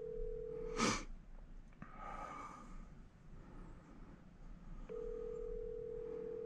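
Telephone ringback tone through the phone's speaker while an outgoing call rings: a steady hum that stops shortly after the start, then about four seconds of gap, then rings again for about two seconds near the end. A short breathy sound about a second in.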